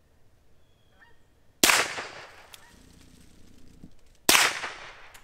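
Two loud pistol shots about two and a half seconds apart, each dying away quickly: a Walther PPK/S firing high-velocity CCI Stinger .22 LR rounds.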